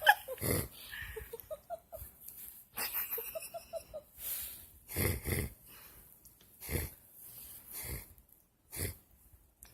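Snoring: wheezy breaths in separate, irregular bursts, the longest and loudest about five seconds in.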